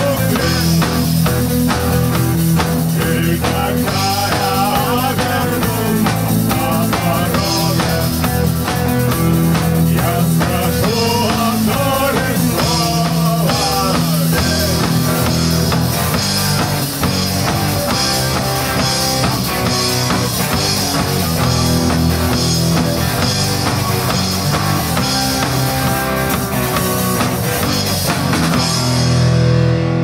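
Rock band playing live in a rehearsal room: drum kit, bass guitar and guitars, with a male voice singing mostly in the first half. Just before the end the drums and cymbals stop on a final hit and a low bass chord rings on.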